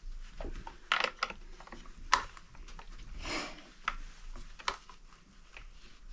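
A small wrench working the bar nuts on a Husqvarna Rancher 455 chainsaw: scattered metal clicks and light scraping as the nuts are tightened, with a brief rustle of handling in the middle.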